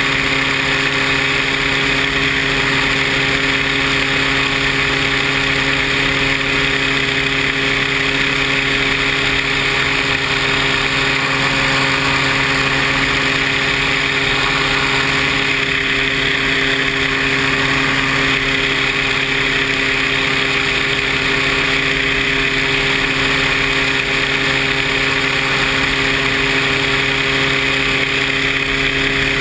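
Paramotor engine and propeller running at a steady throttle: one unchanging drone with a strong hiss over it.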